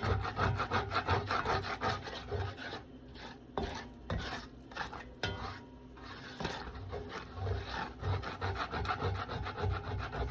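A utensil scraping back and forth across the bottom of a skillet in quick, repeated strokes, with a couple of brief pauses. It is loosening the browned chicken bits stuck to the pan in a little olive oil.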